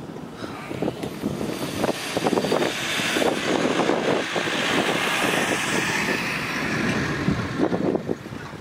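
Mitsubishi L200 Triton pickup driving past close by over grass: its engine and tyre noise swell over the first couple of seconds, hold, and fade away after about seven seconds.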